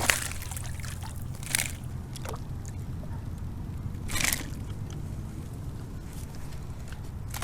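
Water sloshing and trickling around a kayak while a hooked bass is fought, with three short splashes, about a second and a half and four seconds in the loudest.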